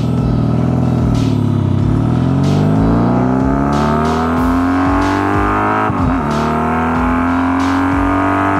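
Honda Magna V4 with drag pipes accelerating away from a stop. The exhaust note climbs steadily in pitch, drops sharply at an upshift about six seconds in, then climbs again.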